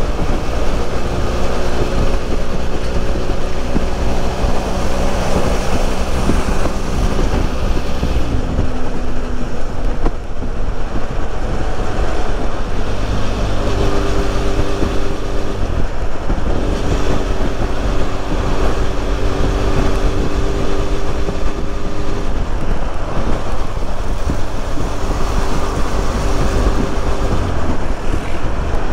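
BMW F800 parallel-twin motorcycle engine running while riding, under steady wind and road noise on the microphone. Its note changes pitch partway through, dipping and fading, then settles at a new steady tone.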